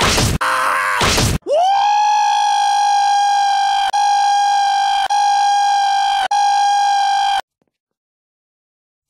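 A loud, harsh noise chopped into short stuttering repeats, then a man's voice holding one long high note into a microphone. The note is looped, with a click about every second and a quarter. It cuts off suddenly about seven and a half seconds in.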